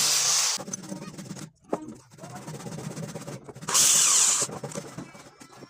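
Two loud bursts of hissing air from a compressed-air tool, one stopping about half a second in and a shorter one near four seconds in, with quieter clicks and knocks of workshop handling in between.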